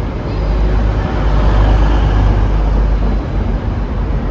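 Passenger train moving through the station: a steady, loud rumble whose noise swells around the middle.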